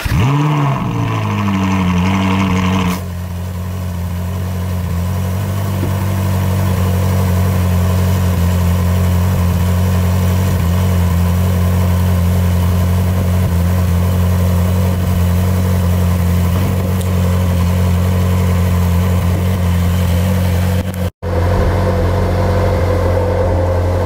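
Ferrari 458 Spider's 4.5-litre naturally aspirated V8 catching and flaring up on start, then dropping to a steady idle about three seconds in. It idles without the ticking of the old EVAP purge valves, which have just been replaced.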